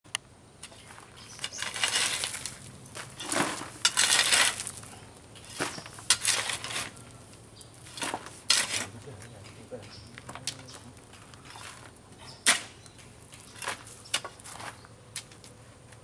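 A hoe scraping and chopping into a pile of sand and gravel, in gritty bursts every second or two, with a sharp knock about twelve seconds in.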